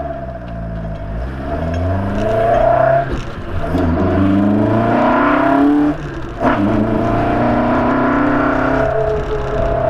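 TecArt's-tuned Toyota 4A-GE 16-valve twin-cam inline-four on individual throttle bodies, accelerating hard through the gears. The engine note climbs, drops at a shift about three seconds in, climbs again, and drops at a second shift about six seconds in, then runs at a steadier pitch.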